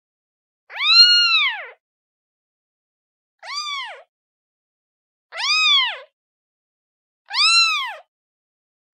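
A kitten meowing to call its mother: four high meows about two seconds apart, each rising then falling in pitch, the second one shorter and quieter.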